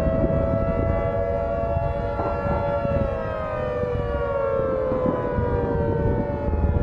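Outdoor civil defense siren sounding a two-tone chord, its pitch sliding slowly down from about three seconds in, over a steady low rumble.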